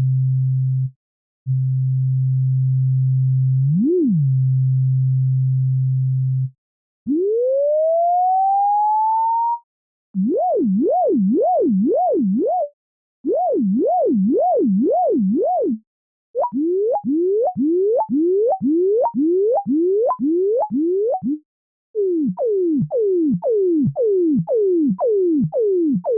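A pure electronic sine tone whose pitch traces the graphs of math functions: a steady low tone, then a glide that rises and levels off, then a smooth wavering up and down, then a rapid run of repeated sweeps that each jump back and climb again. Short silences separate the sections.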